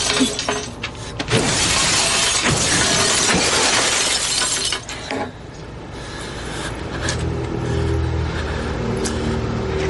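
Glass mirrors being smashed: a dense, continuous crash of shattering glass with several sharp blows, lasting about five seconds. It then thins to a few falling shards, and low sustained music swells in.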